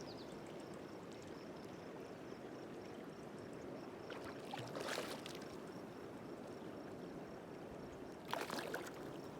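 Green River water flowing steadily past a boat, with two brief splashes about halfway through and near the end.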